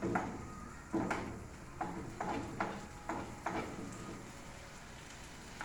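A cooking spoon knocking and scraping against a pot as vegetables are stirred, about seven sharp knocks in the first three and a half seconds, then quieter.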